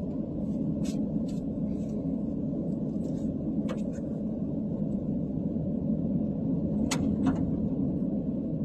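Car driving along a snow-covered road, heard from inside the cabin: a steady low rumble of engine and tyres. A few short sharp clicks break through about one, four and seven seconds in.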